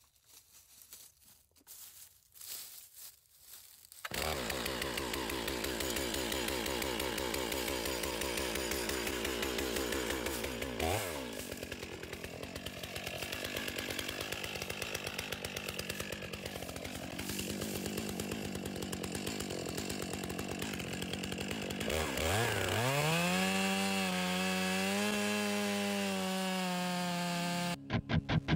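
Stihl MS 661 two-stroke chainsaw running, with a quick rev up and down about a third of the way in. Near the end the engine climbs to a high, steady pitch as the chain cuts into a pecan stump, throwing sawdust. The sound cuts off suddenly just before the end, after a few seconds of faint light ticking at the start.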